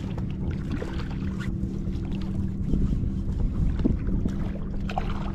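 Inflatable dinghy being rowed across open water, with wind buffeting the microphone, a steady low hum, and a few light knocks.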